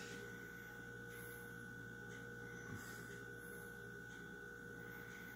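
Quiet room tone with a steady electrical hum, a few faint soft rustles and one small tap a little past the middle.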